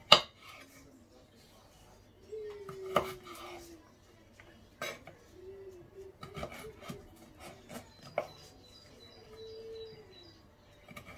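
Kitchen knife chopping carrot sticks on a wooden cutting board: irregular knocks of the blade against the board, the loudest right at the start and another about three seconds in.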